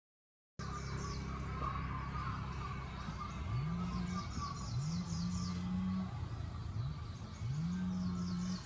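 Birds chirping in quick runs of short, falling notes over a steady low background hum. In the second half a low tone glides up and holds level, about four times.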